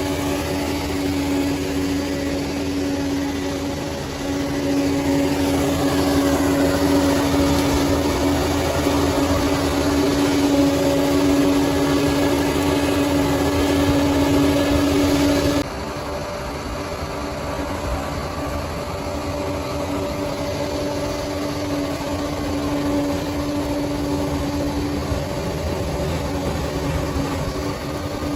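Bulldozer diesel engine running steadily with a strong low hum. The sound gets louder about four seconds in and drops off suddenly a little past halfway, then carries on at a lower level.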